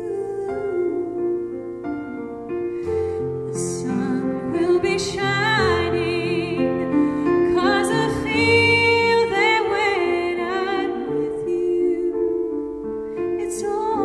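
A woman singing a song with digital piano accompaniment, her held notes wavering with vibrato.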